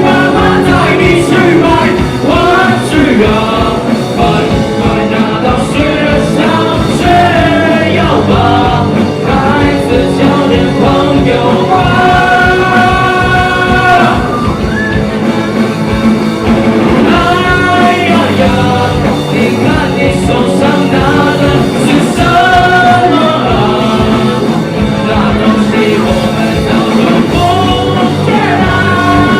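Live rock band with two electric guitars, bass guitar and drums, playing loud and steady, with sung vocals over it.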